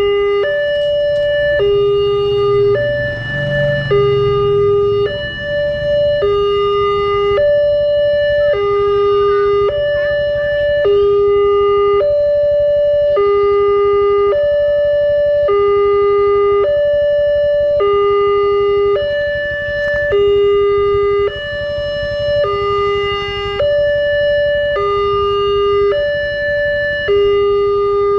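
Electronic two-tone warning bell of a Wantech railway level crossing, alternating a low and a high tone about a second each in a steady loop, sounding while the barriers are down for an approaching train. A motorcycle engine rumbles briefly about three seconds in.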